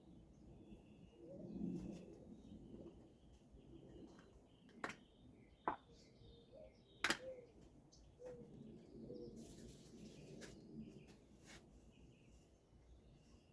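Hands rubbing during a head and neck massage, with three sharp cracks around the middle, while birds chirp in the background.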